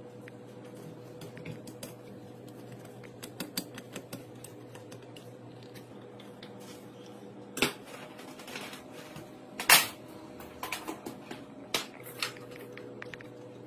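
Small metallic clicks and clinks of a screwdriver on the screws of an electric water pump's terminal-box cover and of the cover plate being handled, with a couple of louder knocks about halfway through and a few more near the end, over a faint steady hum.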